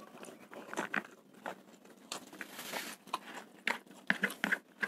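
Close-up chewing and crunching of a mouthful of spicy fried rice, with scattered sharp mouth clicks and a brief hiss a little over two seconds in.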